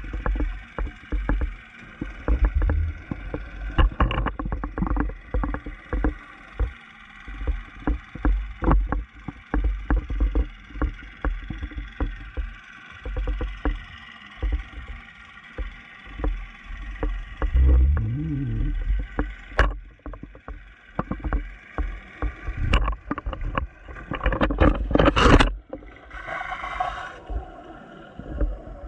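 Muffled underwater sound from a GoPro in its dive housing: an irregular low rumble full of knocks and clicks, with a louder crackling rush about 25 seconds in.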